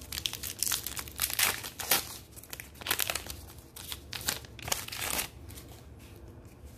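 A Topps trading-card pack wrapper crinkling and tearing as it is ripped open by hand: a dense string of sharp crackles that dies away about five seconds in.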